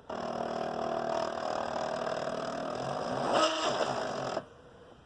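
SteppIR antenna element stepper motor driven by the repaired controller, running with a steady whine for about four seconds, its pitch sweeping up and down near the end before it stops suddenly. It shows the controller's director-element motor output working again after its stepper driver chips were replaced.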